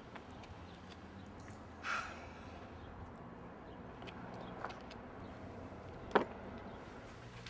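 Faint outdoor background with a low, steady hum. A short rushing noise comes about two seconds in, and a single sharp click about six seconds in.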